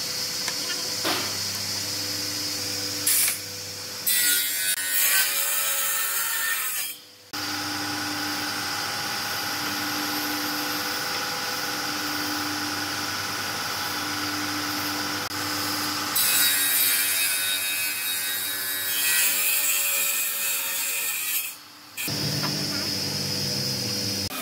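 Stationary woodworking saw running steadily with a constant motor hum, with two stretches of louder rasping as wood is fed through and cut, each several seconds long and ending abruptly.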